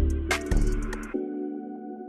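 Background music: a bass-heavy beat with percussion for about the first second, then sustained synth chords and a high held tone.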